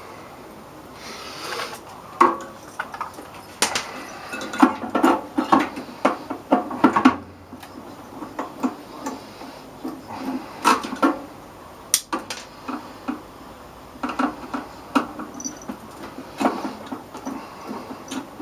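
Irregular clicking, knocking and scraping of hand tools and metal and plastic parts being handled while a microwave oven is taken apart.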